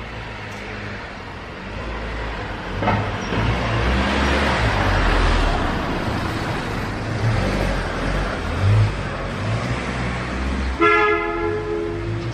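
Road traffic: a motor vehicle passes close by, its rumble and road noise swelling and holding for several seconds, then a car horn sounds for about a second near the end.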